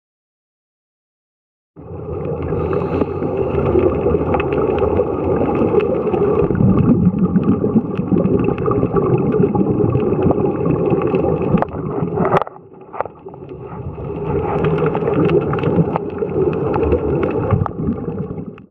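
Muffled underwater noise on a scuba dive: a dense rumble of scuba bubbles and moving water with scattered sharp clicks. It cuts in about two seconds in after silence and drops away briefly about two-thirds through.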